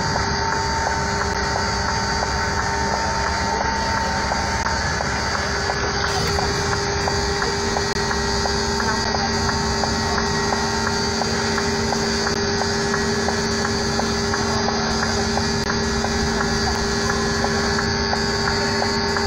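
Steady mechanical drone of heavy engines idling on a ferry's enclosed vehicle deck, with several constant hums. A new, lower hum joins about a third of the way in.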